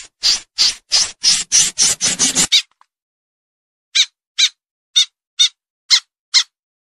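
Snipe calling: a fast run of short, harsh calls that quickens and stops about two and a half seconds in, then after a pause of over a second, cleaner calls about two a second.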